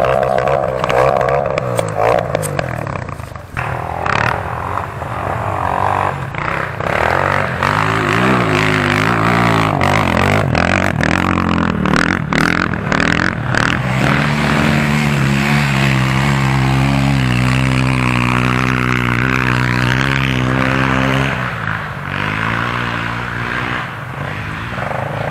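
Single-cylinder enduro dirt bike engines running and revving under throttle, the pitch rising and falling, and held steadier for several seconds past the middle. Frequent sharp knocks and rattles from the bikes over rough ground come in the first half.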